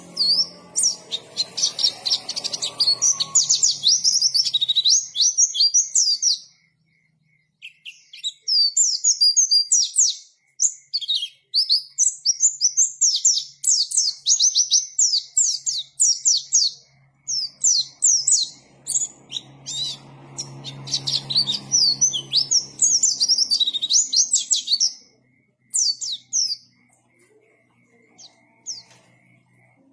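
White-eye (pleci) singing a fast, twittering song in bursts of several seconds with short pauses between them, thinning out near the end.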